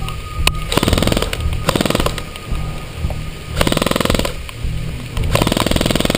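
Several short bursts of rapid full-auto fire from an electric airsoft rifle, each under a second, over background music with a steady beat.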